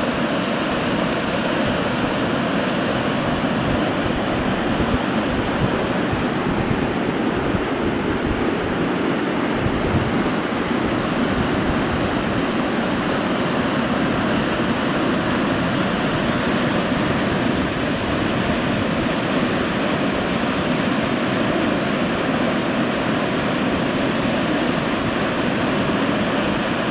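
A river in flood, muddy water rushing and churning white as it pours out through a stone bridge arch: a steady, unbroken rush of turbulent water.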